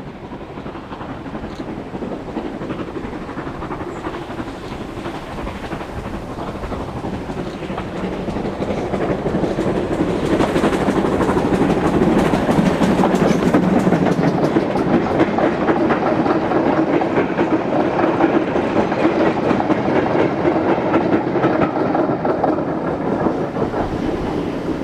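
GWR 4200-class 2-8-0 tank locomotive passing under steam with a goods train, its wagon wheels clattering over the rail joints. The sound builds as it approaches, is loudest about halfway through as the engine and wagons go by, and eases slightly near the end.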